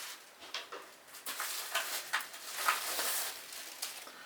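Packaging being handled: irregular rustling, crinkling and scraping as the sleeved keyboard is lifted out of its box.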